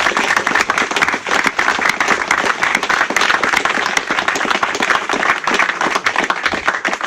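A crowd applauding: dense clapping from many hands that stops abruptly at the end.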